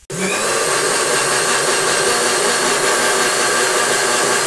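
Electric mixer grinder running, its steel jar grinding berries, green chillies and herbs into chutney. A steady motor whine starts abruptly and cuts off suddenly near the end.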